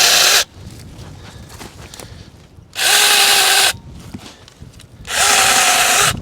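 Natiddy cordless mini chainsaw making short marking cuts into firewood logs: three bursts of about a second each, a steady motor whine under the chain cutting wood. The first burst ends just after the start.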